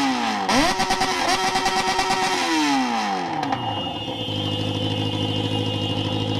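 Yamaha XJ6's inline-four running loud through a straight pipe with no muffler, its revs climbing, dropping sharply for a moment and climbing again. About two and a half seconds in the revs fall away, and they settle to a steady low note.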